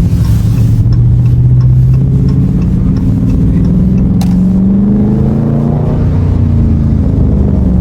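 2021 Dodge Charger Scat Pack's 6.4-litre 392 HEMI V8 running with a mid-muffler-delete exhaust while driving. The engine note holds steady, climbs in revs for a few seconds around the middle, then settles back.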